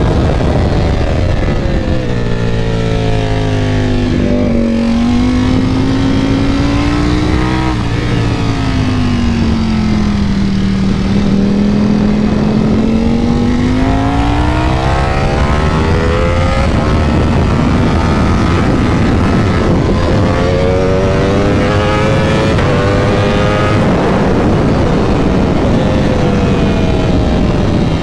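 Ducati Panigale V4 engine at speed on a track. The revs fall, climb and fall again, then rise through several quick gear changes.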